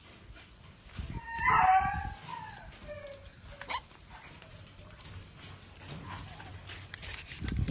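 A puppy's loud, high yelping cry about a second and a half in, falling in pitch, followed by a few fainter short cries.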